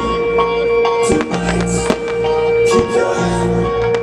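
Music: a long held note and changing notes over sharp percussive beats.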